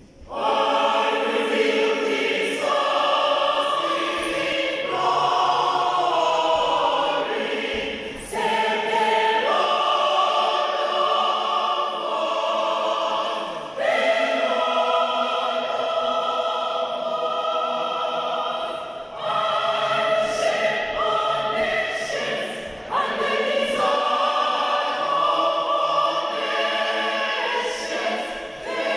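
Mixed church choir of men and women singing together in parts, in long phrases with brief breaks between them.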